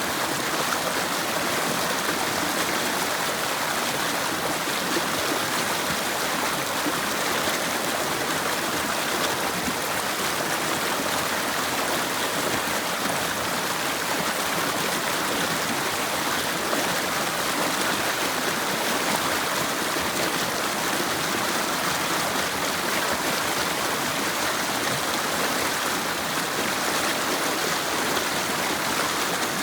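River water rushing and babbling over rocks, a steady, even flow.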